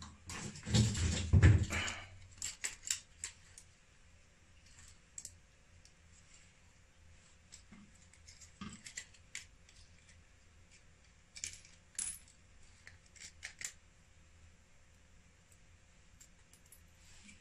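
Small metal tools and parts being handled beside an opened inverter: a loud clatter about a second in, then scattered light metallic clicks and clinks.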